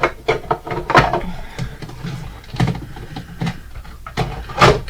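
Clattering and knocking of hard objects being moved about while rummaging through a cluttered room, a string of short irregular knocks, the loudest a little before the end.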